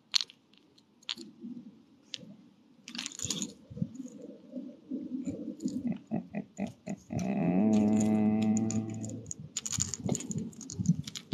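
Scattered clicks and light knocks of a fishing rod and its line, ring and float being handled close to the microphone. About seven seconds in, a low drawn-out voice-like sound rises briefly, then holds for about two seconds; it is the loudest thing here.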